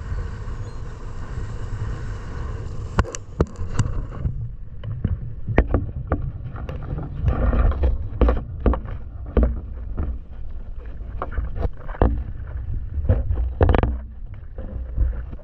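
Low wind rumble on the microphone, with a run of irregular sharp clicks and knocks from about three seconds in.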